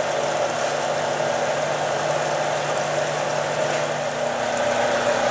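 UHF gold concentrator table running: a steady machine hum and vibration from the shaking deck, with water washing over it. About four seconds in, the low part of the hum drops out.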